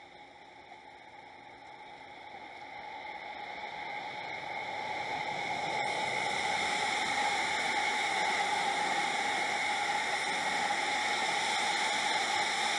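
Commuter electric train passing close by at speed: a steady rush of wheel-on-rail noise that builds over the first six seconds as the train comes near, then holds loud while the cars go by.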